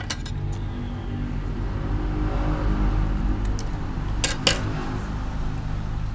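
Steel scissors snipping a cigarette-pack card twice in quick succession, about four seconds in, over a low steady hum, with light clicks at the start as the scissors are picked up.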